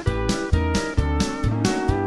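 Country band music, instrumental: guitar over a steady two-beat rhythm, with bass notes changing about twice a second under regular drum strikes.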